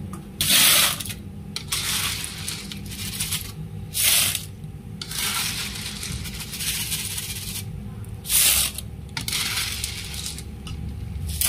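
Sea snail shells clattering against each other and a wire skimmer as batches are scooped out of boiling water and tipped out: three loud rattling bursts about four seconds apart. The boiling water bubbles between them.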